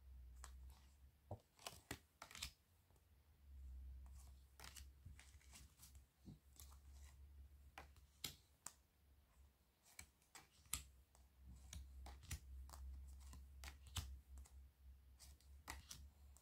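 Faint, irregular clicks and soft slides of glossy oracle cards being flipped one by one off a stack in the hand, with a low hum in places.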